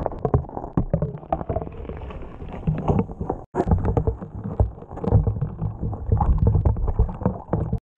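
Muffled underwater sound picked up by a camera beneath the ice: low rumbling with many dull knocks and thuds. It breaks off briefly about three and a half seconds in.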